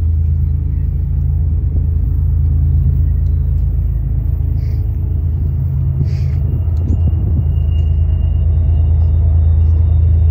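Diesel-electric freight locomotives running with a steady, loud, low engine rumble. A faint thin high whine comes in about two-thirds of the way through.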